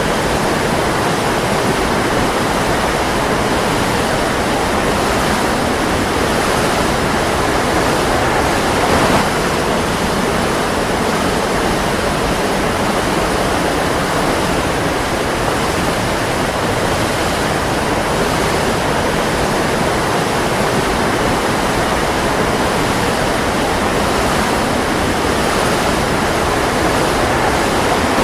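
Waterfall: water falling and rushing steadily.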